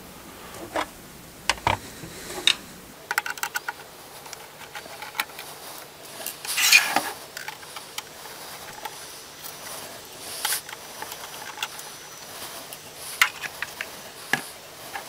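Phillips screwdriver backing out the screws of a Cisco ISR 800 router's metal cover, with scattered small clicks and taps of metal as the chassis is handled. There is a run of fast ticks about three seconds in and a louder scrape near the middle.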